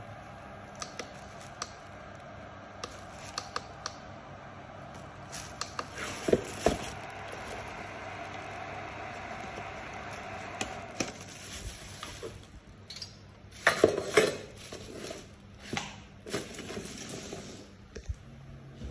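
Handling noise: scattered clicks, knocks and rustles of equipment being moved about, with the loudest cluster of knocks about fourteen seconds in.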